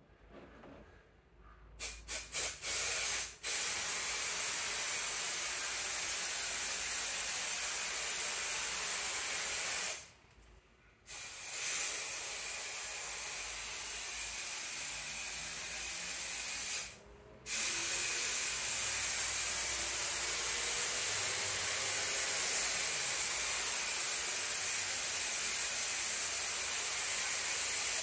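Aerosol spray adhesive hissing from the can as it is sprayed to glue down the edge of vinyl flooring. It starts with a few short puffs, then runs in long continuous sprays, with brief breaks about ten seconds in and again around seventeen seconds.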